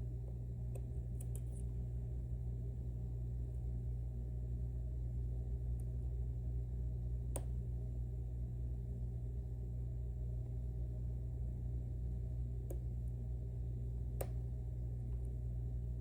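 A few sharp, isolated metallic clicks as a lock pick and tension tool work inside a Mauer NW4 lock, over a steady low electrical hum.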